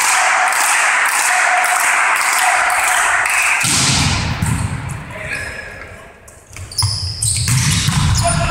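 Rhythmic clapping, about two claps a second, over crowd noise in a sports hall, dying away about three and a half seconds in. Then come volleyball play sounds: shoes squeaking on the court floor and the ball being struck.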